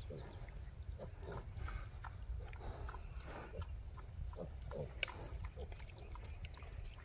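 Pigs foraging and eating acorns: faint, short grunts and snuffles mixed with scattered small crunching clicks, over a low steady rumble.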